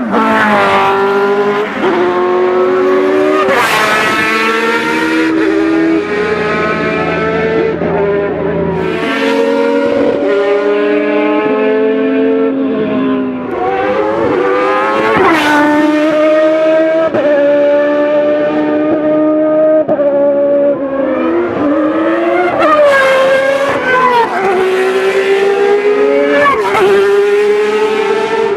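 Ferrari 333 SP race car's V12 engine running hard on track, its pitch climbing and dropping again and again through gear changes. Very loud.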